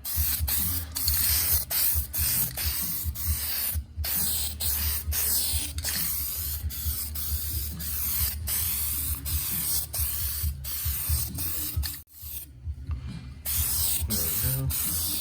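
Aerosol can of Duplicolor epoxy primer sealer spraying with a steady hiss, now fitted with a replacement nozzle. The spray stops briefly about four seconds in and pauses for about a second near the end.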